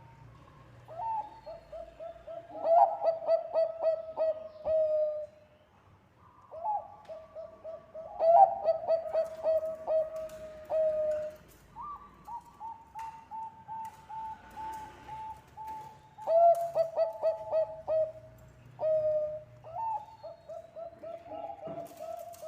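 Zebra dove (Bangkok perkutut) singing: about five phrases of rapid staccato coos, each ending on a longer, lower drawn-out note, with short pauses between phrases.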